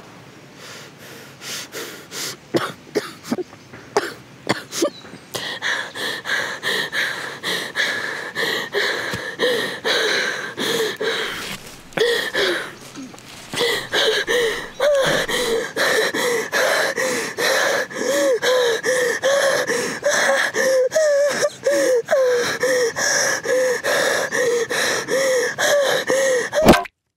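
A woman laughing hysterically in wheezing, gasping breaths. It starts as scattered sharp gasps, then settles from about halfway into a steady run of about two pitched laughs a second. It cuts off abruptly after one loud final burst near the end.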